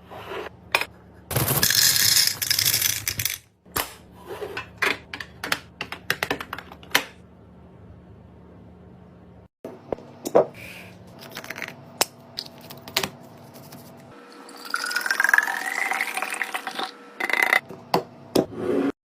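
Kitchen containers and lids clicking and knocking as they are handled, with a rustling rush early on. Near the end liquid is poured into a container, its pitch rising as it fills.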